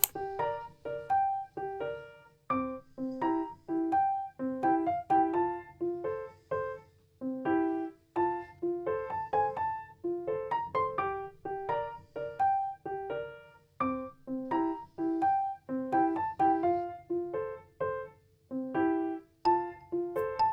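Background music: a gentle melody of short plucked or struck keyboard notes, several a second, over a soft low bed.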